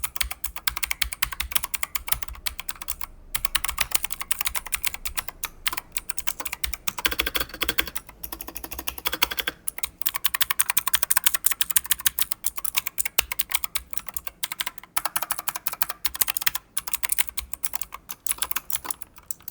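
Fast typing on a Havit KB893L mechanical keyboard with blue switches: a dense stream of clicky keystrokes, broken by a few brief pauses.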